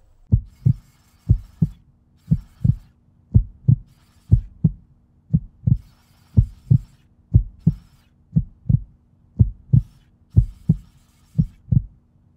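Heartbeat-like pulsing beat from a laid-over backing track: pairs of low thumps, about one pair a second, over a faint steady low drone.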